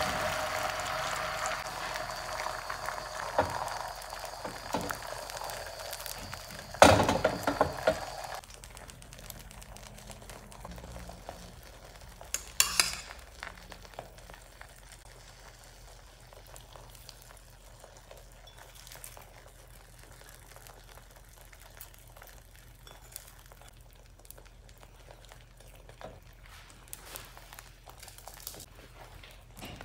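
Beaten egg sizzling in a hot nonstick frying pan, the sizzle fading away over the first eight seconds or so. A loud clatter comes about seven seconds in and a shorter clink around twelve seconds, then only faint light taps and clicks as toppings are spooned onto the omelette.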